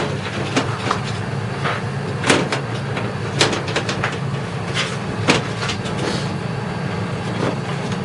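Clicks and light knocks of a sheet-metal PC case side cover being handled and fitted onto the case, several separate strikes, over a steady low hum.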